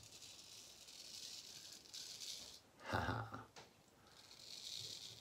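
Soft rasping scrape of a carbon-steel straight razor cutting stubble against the grain on the lathered upper lip and chin, in strokes. About three seconds in, a brief louder noise interrupts the scraping before it resumes.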